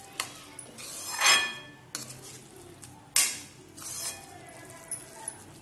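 A steel spoon stirring thick gajar ka halwa (grated-carrot pudding) in a kadhai, scraping against the pan in about four strokes, the loudest about a second in, with light clinks of spoon on metal.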